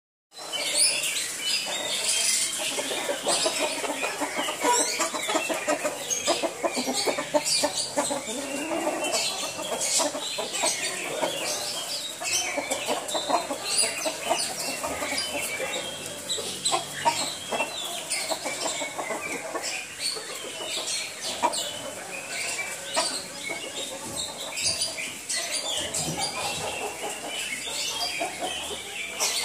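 Chickens clucking, a busy run of short calls with no real pause.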